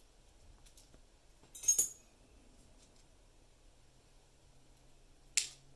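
Small metal lock pins and parts clinking against a hard surface as a gutted pin-tumbler lock is taken apart: one ringing clink, then a single short click near the end.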